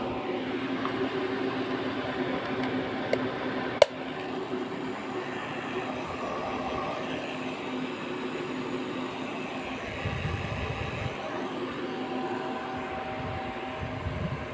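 A wall of many electric fans running together: a steady whirring hum with several held tones, and one sharp click about four seconds in.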